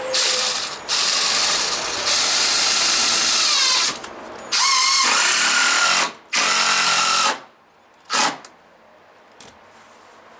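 Cordless drill driving screws into timber, running in about six bursts of one to two seconds each, its motor whine rising and shifting in pitch as it loads up; the last burst near eight seconds is short.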